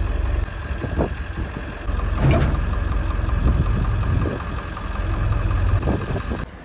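Ford 7.3 Power Stroke turbo-diesel V8 idling steadily in an older Ford pickup with vertical exhaust stacks, a deep even rumble.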